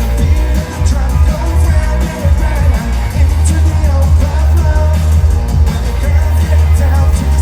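Loud pop dance music over a festival sound system, with a heavy, steady bass beat and some singing.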